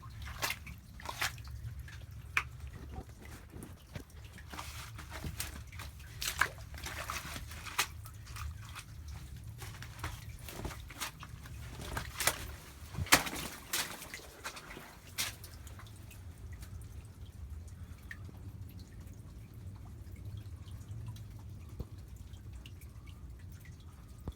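Small creek trickling, with irregular sharp drips and clicks, many in the first fifteen seconds or so and fewer after.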